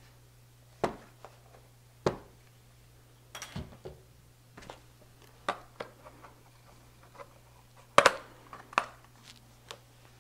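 Hard tool case being lifted out of foam packing and opened, with the tools inside shifting: scattered sharp clicks and knocks, the loudest about one, two and eight seconds in.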